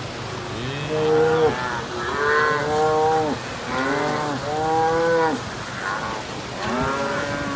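A herd of cattle swimming through floodwater, mooing again and again: long, drawn-out calls, several overlapping, from animals being swept along by the flood.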